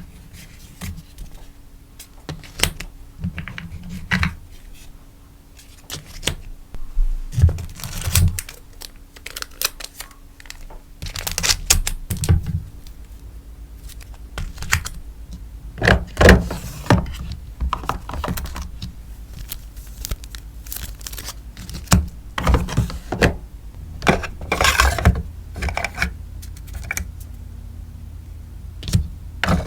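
Sticker packaging being handled: crinkly rustles of plastic sleeves and paper, with many light taps and clicks of small items set down on a desk.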